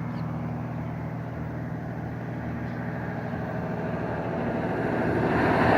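Airboat's engine and propeller running steadily as a low hum, swelling louder near the end.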